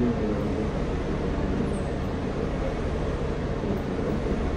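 Mercedes-Benz Citaro O530G articulated bus's diesel engine idling, a steady low hum heard from inside the cabin while the bus stands at a stop.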